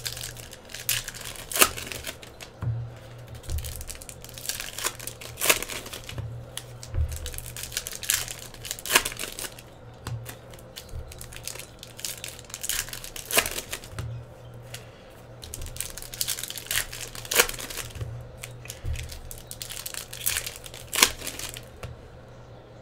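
Foil trading-card pack wrappers crinkling and tearing as packs are opened and the cards are handled, with sharp crackles every second or two.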